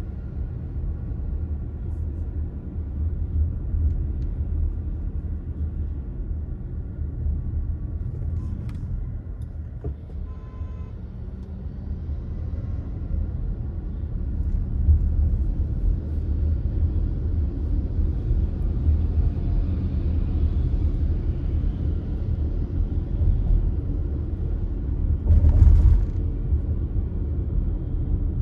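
A car driving along, with a steady low rumble of road and engine noise. There is a brief louder burst of noise about 25 seconds in.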